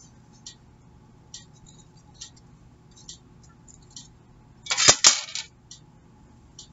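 Clear plastic CD jewel case being handled: light, scattered clicks and taps of hard plastic, with a sharper clatter of several clicks about five seconds in.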